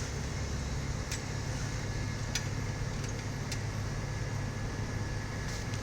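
Steady low mechanical hum, with a few faint light clicks while wires are being connected.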